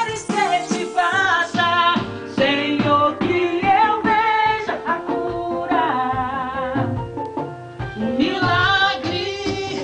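Gospel worship song in Portuguese: a wavering melody with vibrato, sung or played lead, over a band with guitar and a steady beat.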